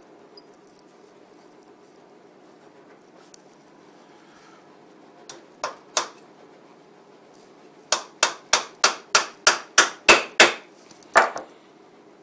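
Hammer driving a small nail into a wooden Langstroth beehive frame: two light taps to start the nail, then a quick run of about ten strikes at roughly four a second, and one last blow.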